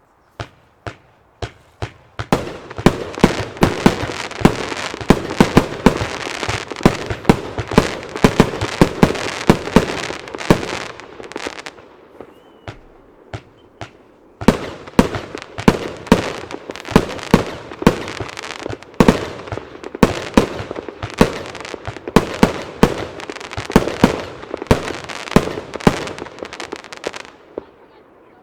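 An 80-shot firework compound cake firing in rapid succession: sharp shots and bursts with a dense wash of noise between them. About twelve seconds in it eases for a couple of seconds, then fires on before stopping near the end.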